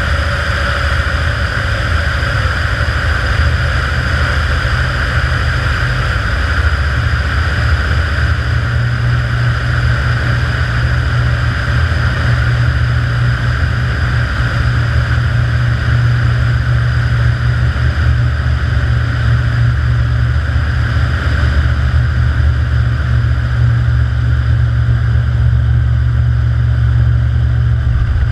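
Kitfox IV floatplane's engine and propeller running steadily as it flies low over the water, heard from a camera on the aircraft; the low drone strengthens slightly about eight seconds in.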